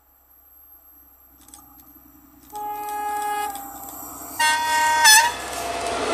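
Horn of a DB class 218 diesel locomotive sounding two blasts as it approaches: a lower tone, then a louder, higher tone that sags in pitch as it cuts off. The rumble of the locomotive and its train of track-maintenance wagons swells up as it passes close by near the end.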